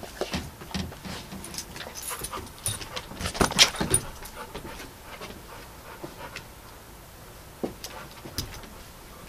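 Small terrier moving about on a leash: scattered clicks and knocks with a metallic jingle from its collar and leash, busiest and loudest in the first four seconds, then only a few faint clicks.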